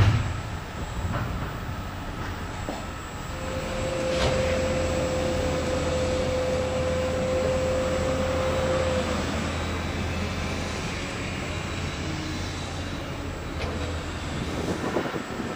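Stationary Class 484 electric multiple unit, its onboard equipment running with a low, steady hum. A steady whine sits over the hum for several seconds in the middle.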